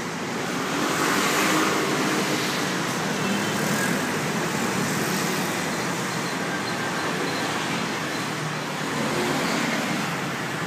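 Steady traffic noise from a busy street, a continuous hum of passing vehicles that swells briefly about a second in.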